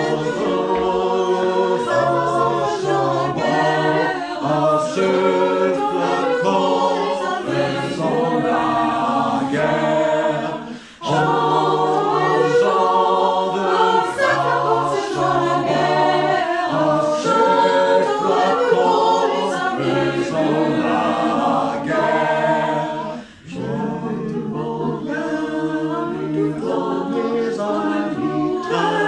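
Mixed choir of sopranos, altos, tenors and basses singing a cappella in parts. The singing pauses briefly twice between phrases, about 11 and 23 seconds in.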